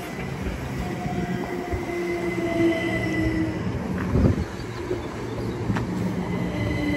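A pair of coupled Class 387 electric multiple units pulling into the platform: a rumble with a steady squeal, growing slowly louder, and a single knock about four seconds in.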